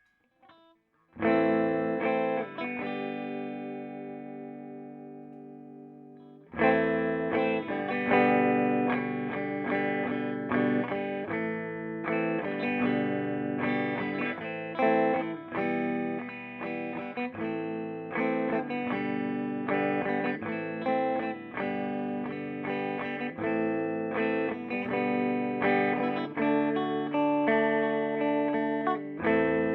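Electric guitar played through a Peavey Bandit 112 combo amp on its clean channel in classic mode, through the high-gain input. A chord struck about a second in rings out and fades for about five seconds. Then steady playing of chords and single notes takes over.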